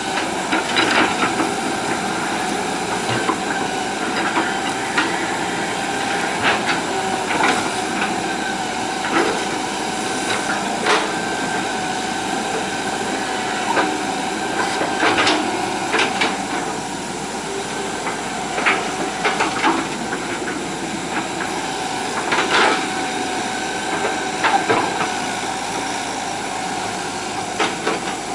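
Hitachi EX120 hydraulic excavator's diesel engine running steadily with a held whine, broken every second or two by sharp metallic clanks as the machine works.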